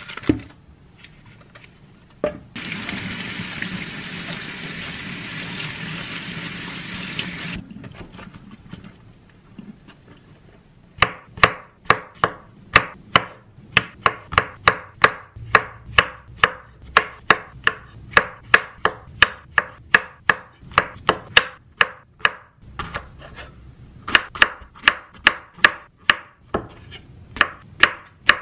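Chef's knife chopping button and king oyster mushrooms on a wooden cutting board: sharp knocks of the blade on the board at about two a second, from about eleven seconds in. Before that, a tap runs for about five seconds.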